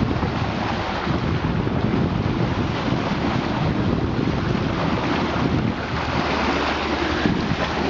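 Steady rush of water along a motoring sailboat's bow, with wind buffeting the microphone.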